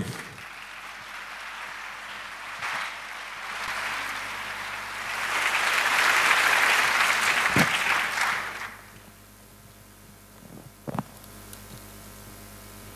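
Audience applause, swelling to its loudest about halfway through and stopping about nine seconds in. A low knock follows near the end.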